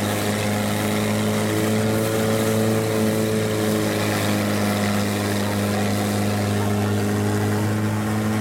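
Longtail boat's engine running steadily under way, heard from aboard the boat as a constant, even drone.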